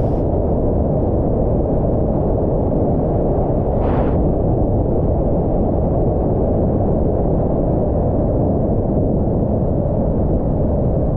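Wind buffeting the microphone of a rider's camera on a motorcycle at road speed: a loud, steady low rumble, with a brief hiss about four seconds in.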